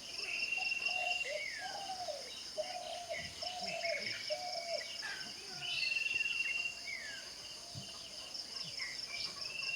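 Outdoor morning ambience: several birds chirping and singing, with two long high trills and a run of lower, arching calls in the first half. Under them runs a steady, high, rapidly pulsing chorus of crickets.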